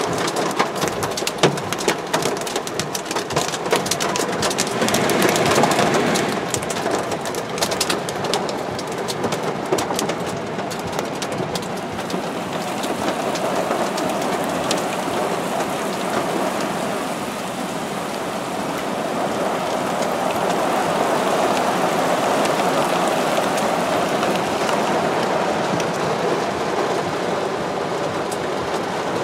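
Heavy rain pouring down with small hailstones pelting surfaces in a dense patter of sharp ticks, thickest in the first dozen seconds and thinning after. The noise swells twice, briefly about five seconds in and more broadly later.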